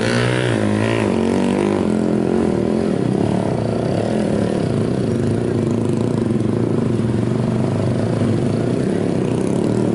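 Motorcycle engine held at high revs with the throttle working up and down as the rider balances a stunt wheelie, the pitch wavering in the first couple of seconds and then holding fairly steady.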